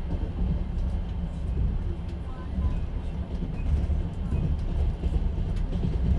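Inside a moving sleeper train car: the steady low rumble of the running train, with faint rattles and clicks from the carriage.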